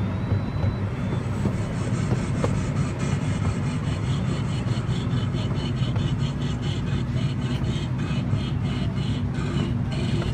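Casey Jr. Circus Train running along its narrow-gauge track, heard from the rear car: a steady low rumble of wheels and running gear. From about two seconds in, a fast, even clicking joins it.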